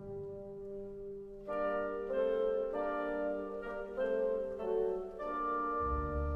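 Orchestral music: a held low chord, then from about a second and a half in a melody of brass and woodwind notes moving roughly twice a second, with low notes coming in near the end.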